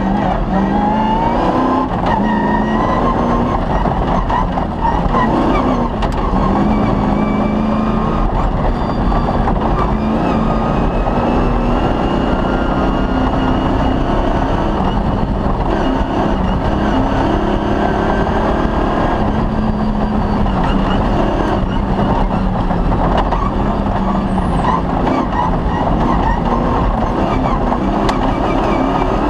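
Rally car's engine running hard and loud, its pitch rising and falling again and again with throttle and gear changes, over the constant noise of the car at speed.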